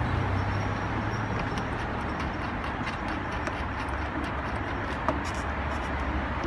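Steady outdoor background noise with a low hum, over which come faint light clicks of small metal parts as a nut is threaded by hand onto the ball stud of a hood lift strut bracket; one sharper click about five seconds in.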